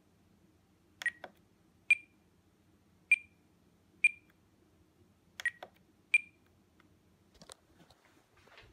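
Spektrum DX9 transmitter beeping as its scroll roller is turned and pressed: six short, high beeps about a second apart, each marking one step while the Gear channel's switch assignment is changed. Some handling rustle near the end.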